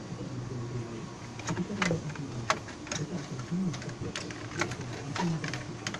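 Irregular sharp clicks and knocks of plastic and metal parts of an HP LaserJet P3015 printer being handled and pried at during disassembly, over a steady low hum.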